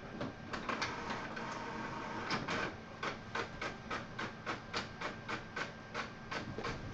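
Desktop printer printing a page: a mechanical whir, then a steady run of even clicks, about three or four a second, as the paper feeds through.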